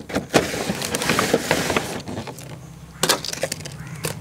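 Empty plastic soda bottles knocking and crinkling against one another and the wooden jig as they are pushed into a row: a run of irregular light clicks and rustles. A low steady hum joins about three seconds in.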